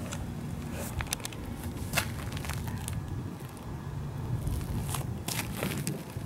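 Handling noise from a handheld camera: scattered light clicks and crackles over a low, steady rumble.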